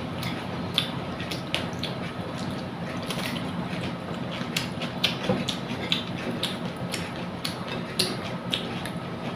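Close-up wet eating sounds of rice with mung dal and fried potol: squelching and chewing, with many small clicks and smacks scattered throughout.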